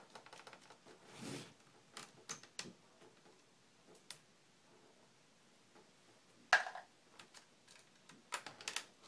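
Scattered small clicks and taps of hands handling a laptop's LCD panel and metal screen brackets while screws are worked loose with a small screwdriver, with a short scrape a little over a second in and one louder sharp click about six and a half seconds in.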